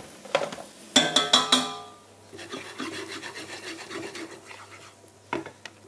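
A quick cluster of clattering knocks with a metallic ring about a second in, then a wooden spoon scraping and stirring garlic in butter around a non-stick frying pan.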